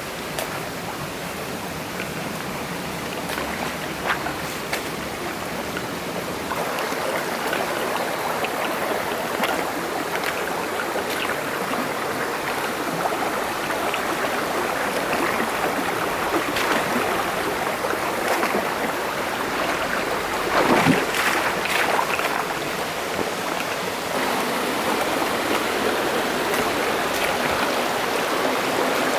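Mountain stream rushing and splashing over rocks, with a louder splash about two-thirds of the way through.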